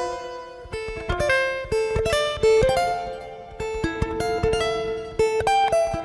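A plucked string instrument playing a melody, notes picked in quick succession, each ringing and then fading.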